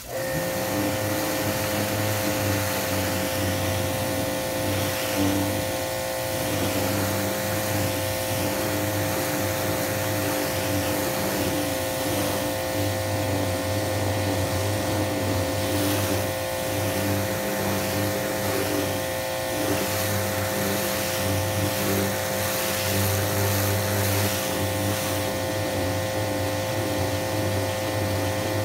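A 2000 PSI pressure washer cuts in suddenly and runs steadily, its motor and pump humming under the hiss of the high-pressure water jet spraying a wooden fence.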